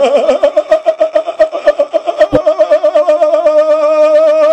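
A person making a strange high-pitched vocal noise: a fast, pulsing warble that settles into a steady held tone, with a single click about two and a half seconds in.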